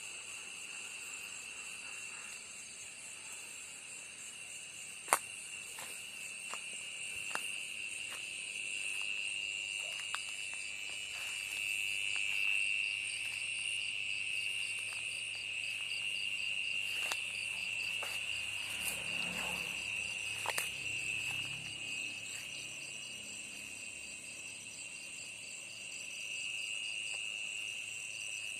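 Steady chorus of insects in a garden: a continuous high-pitched trill that holds throughout, with a few sharp clicks, the loudest about five seconds in.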